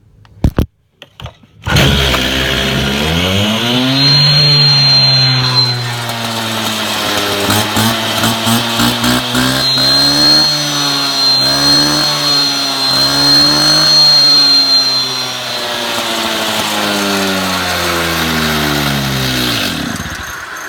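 Stihl TS400 concrete saw's two-stroke engine starting on the first pull of the recoil cord with the choke partly set, then revving and running, its speed rising and falling repeatedly. The engine speed drops away near the end. A few sharp knocks come just before it catches.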